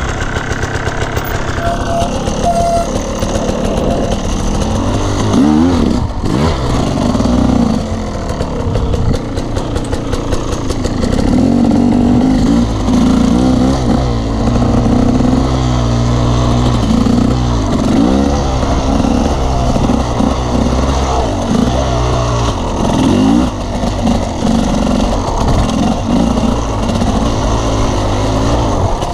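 Off-road motorcycle engine revving up and down under load while being ridden over dirt trails, its pitch rising and falling repeatedly with the throttle and gear changes.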